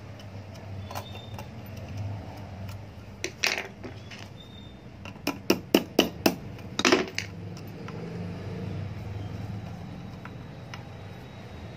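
Small metal parts and hand tools clinking and tapping against an electric iron's metal soleplate and thermostat bracket as washers and screws are fitted; a couple of clicks, then a quick run of about five sharp clicks near the middle, over a steady low hum.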